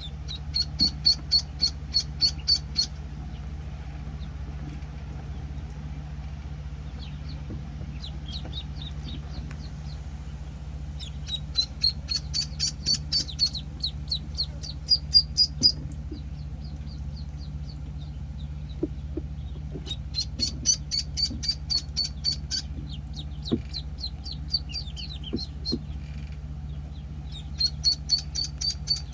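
Week-old penciled call ducklings peeping: runs of rapid high-pitched peeps, several a second, coming in bouts with softer scattered peeps between. A steady low hum runs underneath.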